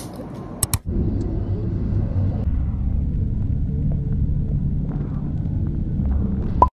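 Two sharp clicks under a second in, then a car's steady low road and engine rumble heard from inside the cabin while driving on a highway. The rumble cuts off abruptly at the end.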